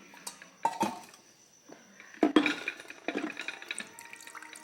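Dishes clinking a few times, then water running and filling a container in a kitchen.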